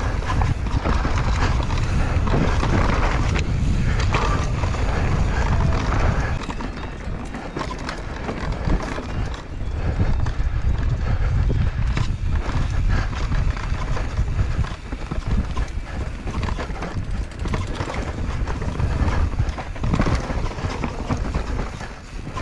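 Mountain bike ridden fast down a rough, rooty dirt trail, heard from the rider's own camera: a low rumble of wind buffeting the microphone, tyre noise on loose dirt, and a constant clatter of chain and frame over the bumps. The rumble eases for a couple of seconds about six seconds in.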